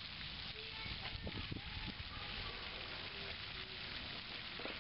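Soft background music, a simple melody of short notes, over a steady hiss, with a few low bumps about a second and a half in.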